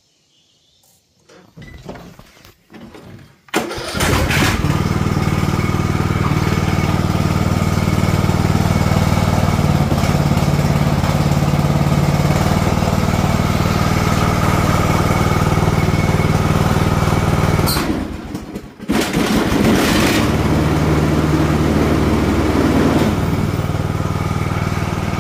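Husqvarna TS242 lawn tractor engine starting about three and a half seconds in after a few faint sounds, then running steadily at speed; the sound drops away for about a second near the end, then the engine runs on.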